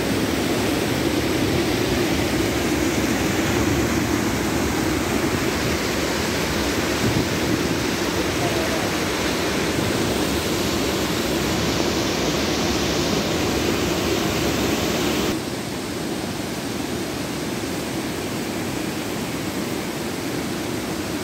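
Waterfall rushing, a steady loud wash of falling water. About fifteen seconds in it drops abruptly to a slightly lower, still steady level.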